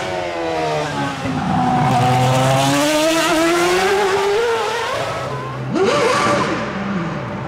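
Ferrari Formula 1 car's 2.4-litre V8 engine at a demonstration run. It starts at low revs, then climbs steadily in pitch for a few seconds. Near the end the revs flare up and down rapidly as the car slides, with some tyre squeal.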